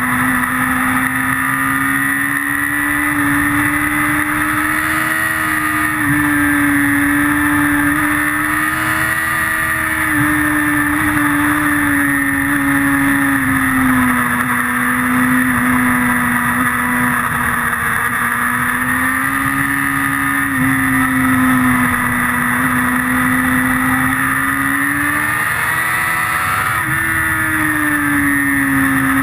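Onboard sound of a motorcycle ridden hard on a race circuit. The engine holds a strong, steady high-revving note that rises and falls gently through the corners, with short breaks at gear changes, over wind noise.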